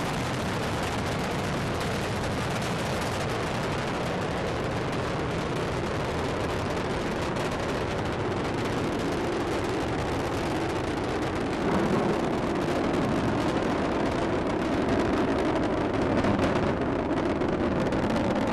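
Space shuttle Discovery's solid rocket boosters and three main engines burning during ascent: a continuous crackling rumble that grows a little louder about twelve seconds in.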